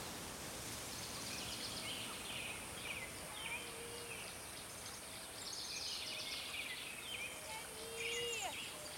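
Outdoor ambience: a steady hiss with small birds chirping, short high calls scattered through. Near the end a child's distant voice calls out faintly.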